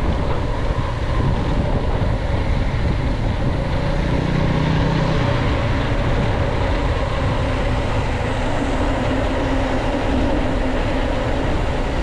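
Trail motorcycle riding a rough dirt mountain trail: the engine runs steadily under way, mixed with continuous low ground and riding noise.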